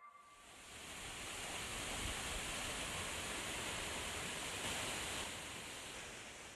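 Steady rush of falling water from a waterfall, fading in over the first second and fading out near the end.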